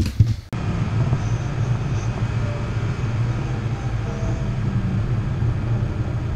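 Steady low rumble of engine and road noise from a Dodge Dakota pickup driving, heard from inside the cab.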